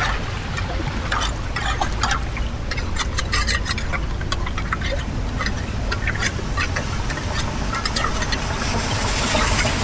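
Floodwater draining into a cleared street drain: a steady rush of water with frequent short splashes and gurgles as debris is moved in it.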